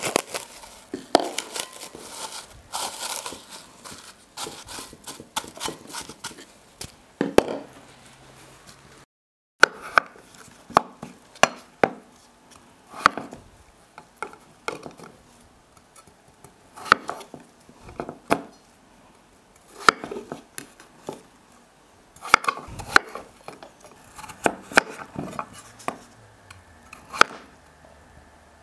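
Cling film pulled from its roll and crinkled over a glass bowl. After a short break, a chef's knife chops peeled raw potatoes into chunks on a wooden cutting board, with irregular sharp knocks of the blade on the board, roughly one a second.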